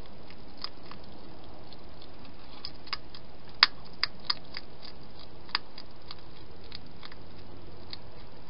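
Hedgehog crunching dry food: scattered sharp crunching clicks, loudest in a short cluster a few seconds in, over a steady background hiss.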